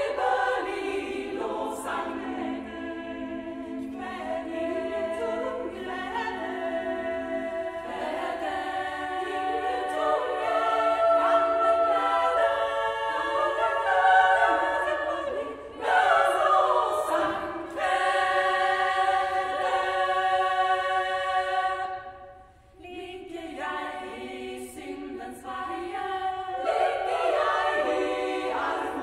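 Women's choir singing a cappella in several parts: sustained, slowly moving chords, with a brief break about three-quarters of the way through before the voices come back in.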